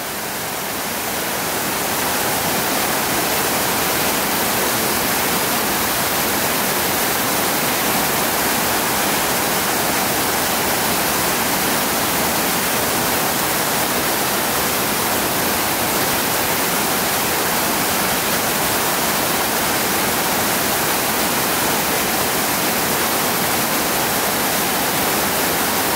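Small waterfall pouring into a brook's pool: a steady rush of falling water that swells over the first two seconds and then holds even.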